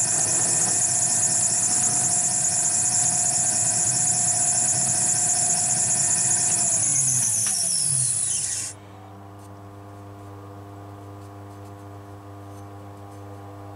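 Metal lathe running with the chuck spinning, a steady mechanical whine with a high hiss. About seven seconds in the lathe is switched off: the pitch falls as the chuck spins down, and the noise cuts off near nine seconds, leaving a low steady hum.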